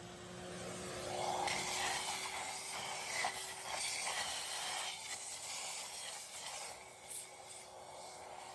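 Rubbing and scraping on metal inside a cylinder bore of a Ford 302 block: a flat strip is worked in quick strokes against the rusted piston top and cylinder wall, starting about a second in and fading out after about six seconds. It is the cleaning of rust loosened by a vinegar soak.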